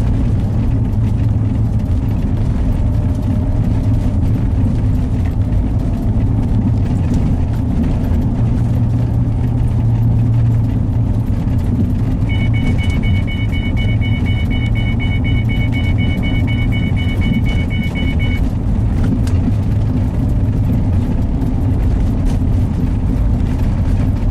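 Steady engine and tyre rumble inside a moving car's cabin. Roughly halfway through, the car's electronic warning chime beeps rapidly for about six seconds, then stops.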